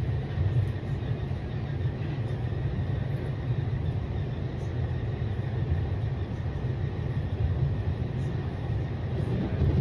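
A PATCO Speedline rapid-transit train in motion, heard from inside the car: a steady low rumble.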